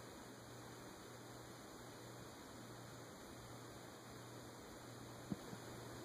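Faint steady hum of a Fanimation ceiling fan's motor running on high speed, over a faint hiss. A single small click about five seconds in.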